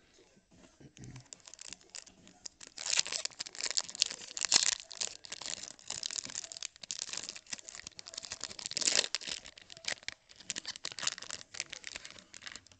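Trading cards and their foil pack wrapper crinkling and rustling as they are handled close to the microphone. The crinkling starts about two and a half seconds in and comes in irregular surges, loudest around the middle and again near the three-quarter mark.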